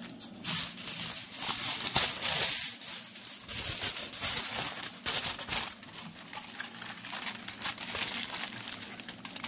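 Aluminium foil crinkling and crackling as it is pressed and crumpled by hand into a shape, loudest in the first few seconds.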